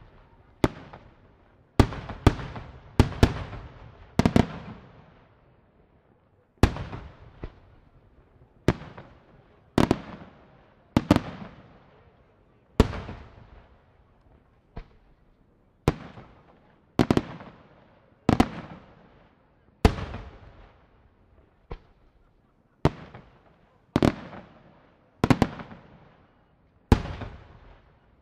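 Aerial firework shells bursting in a display, a sharp bang about every second and sometimes two in quick succession. Each bang fades out in a rolling tail over a second or two.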